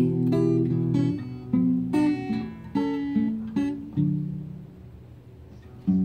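Acoustic guitar strumming chords, about two strokes a second, as the instrumental accompaniment to the song. About four seconds in the last chord is left to ring and fade, and a new strum comes in near the end.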